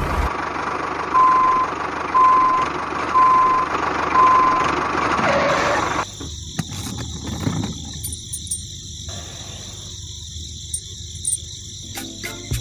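Four steady electronic reversing beeps at one pitch, about one a second, as the toy tractor backs up, over a noisy background. About halfway through the sound drops and gives way to light scattered clicks.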